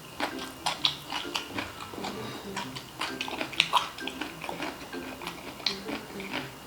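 Close-miked crunching and chewing of crispy deep-fried chicharon bulaklak (pork mesentery): irregular sharp crackles, with quiet background music.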